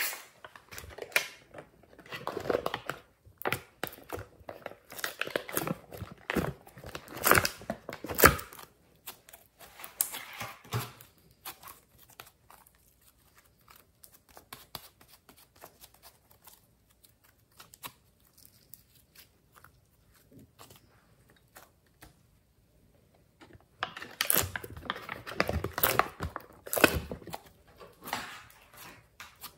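Slime and clay being squeezed, stretched and kneaded by hand, making irregular runs of small sticky clicks and crackles. It is busiest for the first ten seconds or so and again around twenty-five seconds in, and sparse in between.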